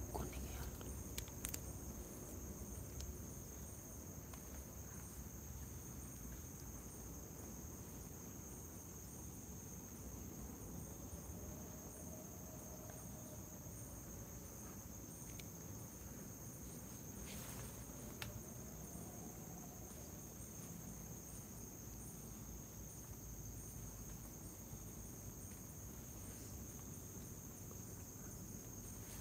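Crickets and other night insects trilling steadily: a continuous high buzz with a fast, even pulse, over low rumbling background noise. A few faint clicks stand out.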